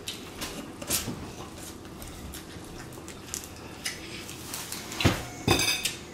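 Crab legs being cracked and picked apart by hand, with chewing and mouth smacking: scattered small clicks and cracks of shell. Two louder knocks come about five seconds in, the second followed by a quick rattle of clicks.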